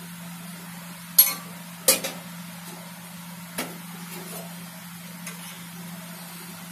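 A metal kitchen utensil clinking against a steel cooking pot: two sharp knocks about a second in, less than a second apart, then two fainter taps later. A steady low hum runs underneath.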